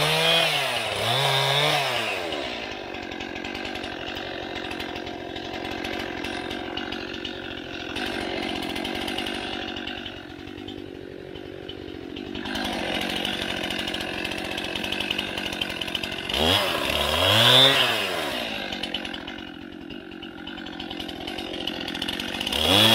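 Gas chainsaw revving up twice at the start, then running at a lower, steady speed for a long stretch. It revs up again about two-thirds of the way through and once more at the end.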